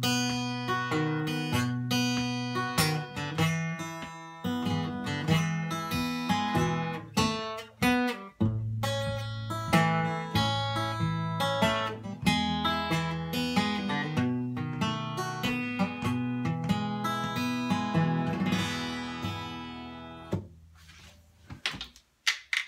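Steel-string acoustic guitar played solo, with picked bass notes and chords and no singing. The last notes ring and fade out about twenty seconds in, followed by a few knocks near the end.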